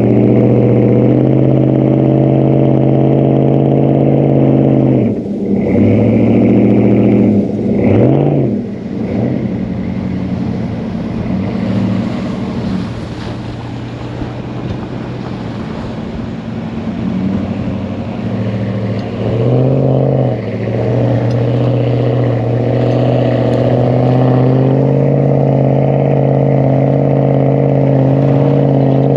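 Car engine running steadily under way, its pitch dropping and recovering briefly a few times, as with gear changes or easing off the throttle.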